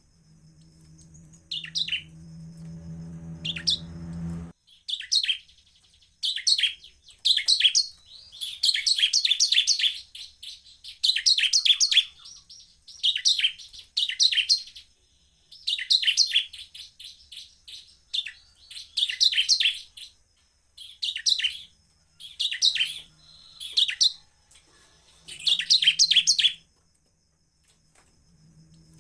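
Bar-winged prinia (ciblek) singing: over a dozen loud bursts of fast, high-pitched chirps and trills with short pauses between them, the longest running about two seconds.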